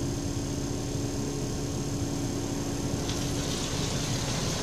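Automatic car wash machinery heard from inside the car: a steady low rumble and hum, then, about three seconds in, a hiss of spray and foam hitting the windows.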